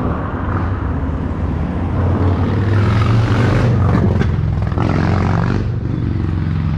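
Motor vehicle engine running, with a steady low hum that swells to its loudest about halfway through, as traffic passes on the road.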